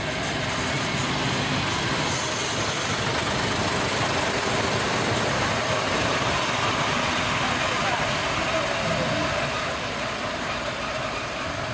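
Diesel railcar train rolling past close by and pulling away, a steady mix of engine noise and wheels on the rails that eases slightly near the end.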